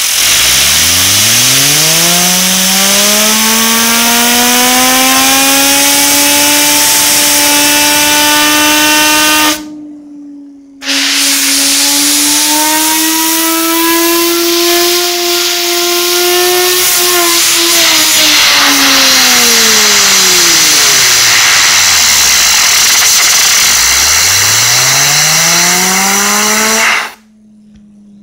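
Compressed air from an air-compressor blow gun hissing loudly against a handheld fidget spinner, whose whine climbs steadily in pitch as the air spins it up. The air stops for about a second after ten seconds and then resumes; the whine holds, sinks, and climbs again near the end before the air cuts off.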